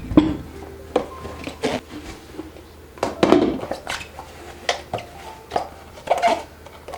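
Kitchen storage containers and pantry items being handled and set down in a cupboard: irregular knocks and clatters, a couple each second.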